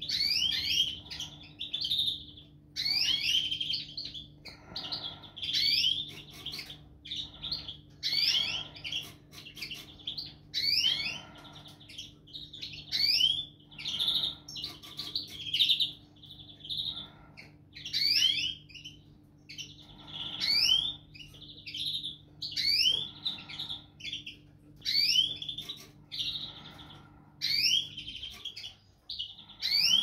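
Caged finches (goldfinches, greenfinches and linnets) singing in repeated short bursts of rising whistled notes, about one every second or two. A faint low steady hum underneath stops near the end.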